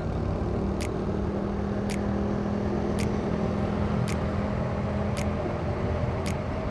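A small motorcycle riding along a road: its engine runs steadily under wind and road noise. A light tick recurs about once a second.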